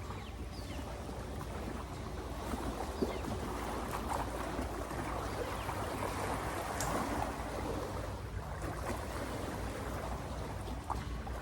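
Shoreline ambience of lake water lapping with a steady low hum underneath and a few faint, brief high chirps.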